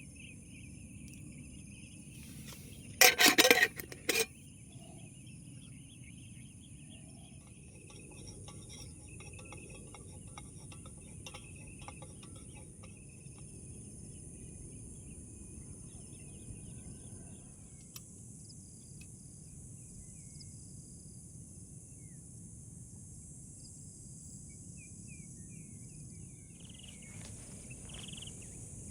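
Outdoor ambience: insects drone steadily at a high pitch while small chirps come and go. A loud clatter of sharp knocks breaks in about three seconds in, followed by a single shorter knock a second later.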